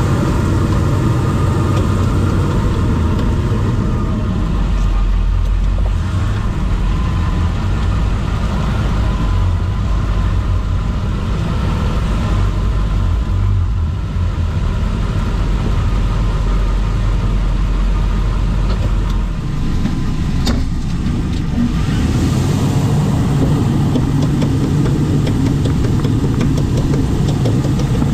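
Toyota 100 Series Land Cruiser driving, with steady engine and road rumble that shifts about twenty seconds in. Through it runs a rotational clicking from somewhere in the drivetrain, several clicks per wheel turn. The owner reports it persists after a new CV axle, ball joint, seals and bearings and is not to one side, so a CV joint is not suspected.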